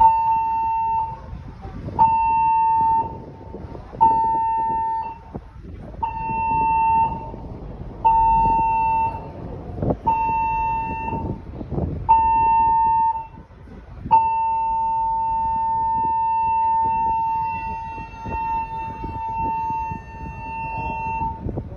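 Ship's general emergency alarm, seven short blasts followed by one long blast, played as a demonstration in the onboard safety announcement. It is a steady mid-pitched horn tone: seven one-second blasts about two seconds apart, then one long blast of about seven seconds.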